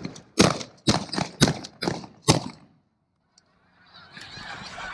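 A flock of snow geese honking: loud, close, sharp calls for the first two and a half seconds, then after a short break a steady mass of fainter honking from a large flock.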